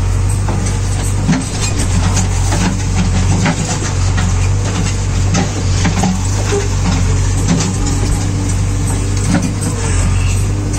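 JCB 3DX backhoe loader's diesel engine running steadily under load while the backhoe arm works, with scattered short knocks and clanks from the digging gear.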